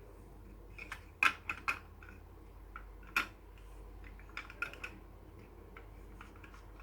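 Plastic Lego bricks clicking and rattling as they are handled and fitted together. Irregular sharp clicks come in small clusters, the loudest about a second in and just after three seconds.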